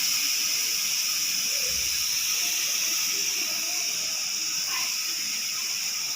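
Pressure cooker letting out steam through its whistle vent: a steady high hiss that slowly eases off.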